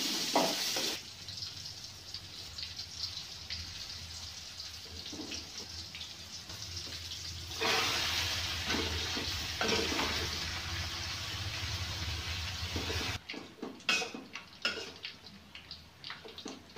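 Hot oil sizzling steadily in a wok as battered food fries, louder through the middle. Near the end come a run of metal spatula scrapes and clinks against a wok.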